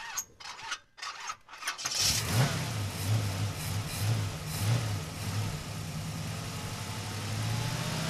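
A car engine starting: a few faint clicks, then the engine catches about two seconds in and idles steadily with a low pulsing note.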